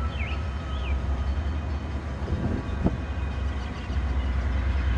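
Diesel locomotive BNSF 4859 running with a steady deep rumble as it leads a grain train slowly by, dark exhaust showing it working. A single sharp knock sounds about three seconds in.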